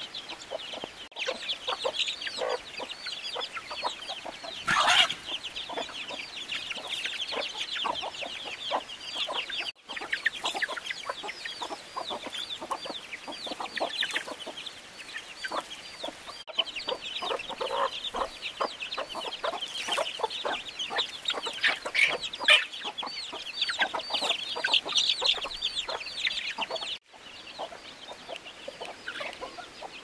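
Chickens clucking, with dense high-pitched chirping running throughout and lower calls mixed in. The sound drops out briefly a few times.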